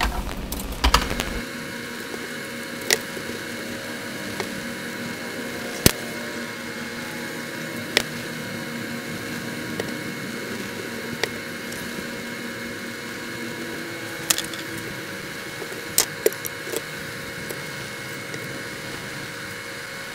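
Scattered small hard clicks and knocks of tools and RC crawler parts being handled during assembly, about a dozen spread irregularly, the sharpest about six seconds in. Under them runs a steady hum with a few fixed whining tones, the camera's recording static.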